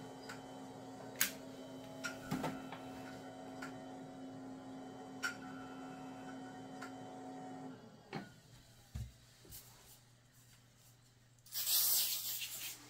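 Power Mac G4 running with a steady fan hum and occasional sharp clicks from its hard drive, which is failing to boot. About eight seconds in the machine is switched off and the hum stops, leaving a few faint knocks. Near the end there is a short burst of hiss lasting about a second.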